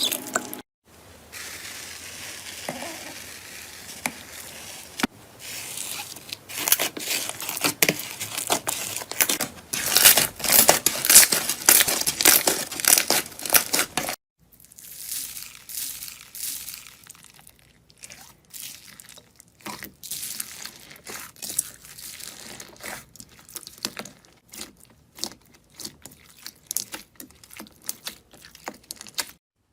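Slime being squeezed and pressed by hand, crackling and popping. Through the middle it gives a dense run of crackles, then sparser single pops.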